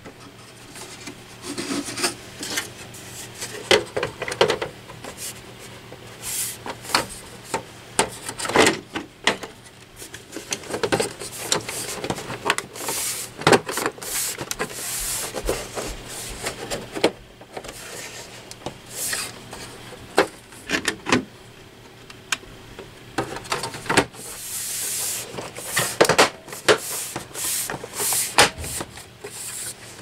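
Rear cover of a Dell Optiplex 9020 all-in-one computer being fitted back on by hand: the panel rubs and scrapes against the chassis, with irregular clicks and knocks as it is pressed down into place.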